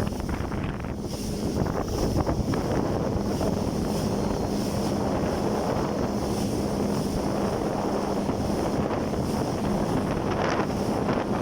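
Jet ski engine running at a steady pitch over the water, with heavy wind buffeting the microphone.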